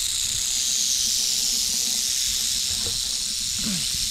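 Timber rattlesnake buzzing its tail rattle in a steady, unbroken hiss, the defensive warning of a snake agitated by being handled.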